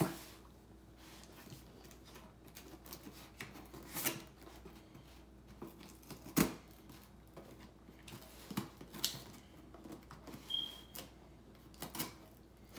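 A small plastic cutter scraping and slicing along the packing tape on a cardboard box, in scattered short scrapes and taps, the sharpest about six and a half seconds in. A brief high squeak comes about ten and a half seconds in.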